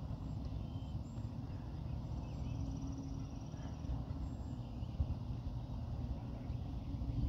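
Outdoor ambience dominated by a fluctuating low rumble of wind on the microphone, with a faint hum passing through briefly in the middle and faint bird chirps.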